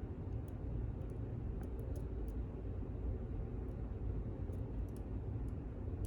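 Pick working the pins of a pin-in-pin lock: faint, irregular small ticks and clicks over a steady low rumble.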